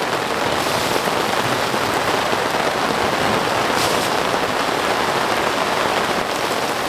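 Heavy rain falling steadily, an even hiss with no letup.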